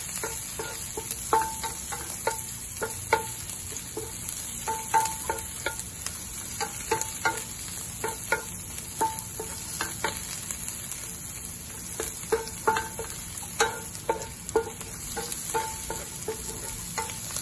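Mussel meats sizzling in hot oil in a nonstick frying pan as a wooden spatula stirs them. Frequent short knocks and scrapes of the spatula against the pan, about one or two a second, some ringing briefly.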